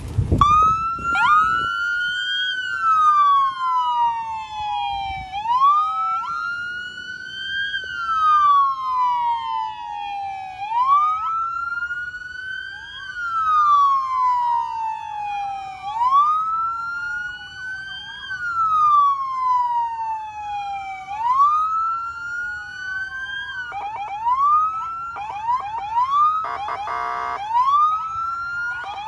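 Police SUV's electronic siren wailing: each cycle rises quickly and then falls slowly, about every five seconds. Near the end it switches to a faster rise and fall, with a short buzzing blast in the middle of that stretch.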